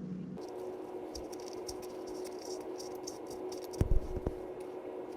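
Scratching and rattling of a valve-core tool working in an ATV tire's valve stem, with a few sharp knocks near the end.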